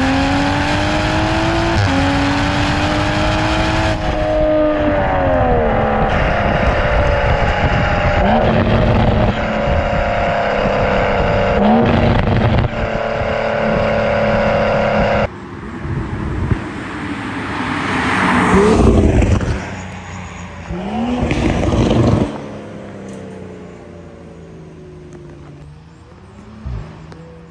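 2021 Toyota GR Supra's 3.0 L turbocharged inline-six, fitted with an MXP catted downpipe and the stock catback exhaust, heard close at the tailpipe while accelerating, its pitch climbing and then dropping at each upshift. About halfway through, the sound switches to the car heard from the roadside: it swells loudly as the car drives past, surges twice, then fades away.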